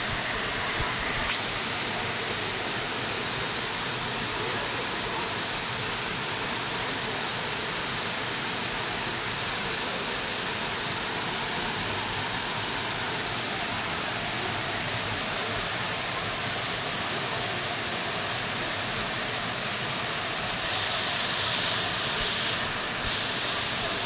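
Waterfall cascading down stepped rock ledges: a steady, even rush of falling water that grows briefly louder and hissier for about two seconds near the end.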